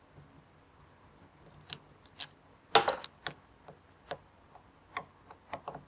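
Screwdriver working screws out of a cordless reciprocating saw's metal gearbox housing: a run of small, irregular clicks and ticks, with a louder cluster about three seconds in.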